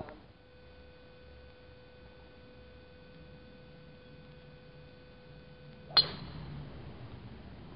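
A golf driver striking a ball off the tee about six seconds in: one sharp, metallic crack with a brief ring. Before it, a faint steady whine.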